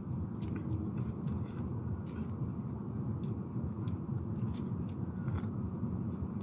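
Eating sounds: scattered small clicks and crunches of a spoon and of food picked apart by hand, over a steady low rumble.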